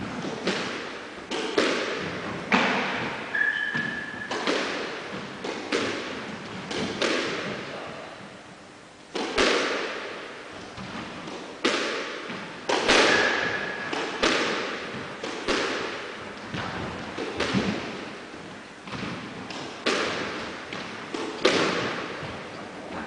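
Squash ball being struck by rackets and hitting the court walls in a rally: sharp cracks about once a second, each echoing around the enclosed court, with a short lull a little before the middle. Two brief high squeaks are heard between shots.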